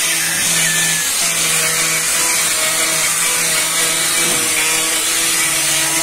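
Small corded handheld electric power tool running steadily against a boat hull, a motor hum with a hiss, working the hull surface during repair. Its pitch dips slightly near the end.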